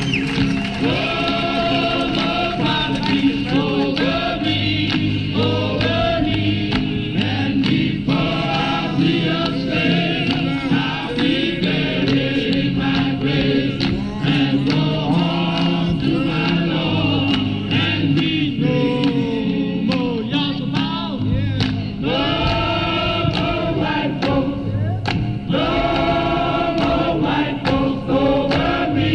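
An archival 1968 field recording of a group sing-along, with a man leading a crowd in a gospel-style song, played back over loudspeakers in a lecture hall.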